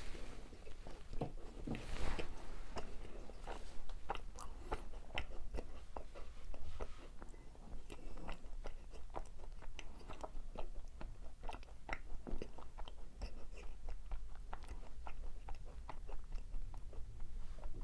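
Close-miked eating of macarons: a bite about two seconds in, then chewing with many small crisp crackles from the meringue shells.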